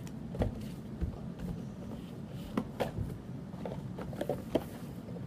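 Cardboard box of a fingerboard ramp kit being handled and opened on a wooden table: scattered light knocks and taps, about seven in all.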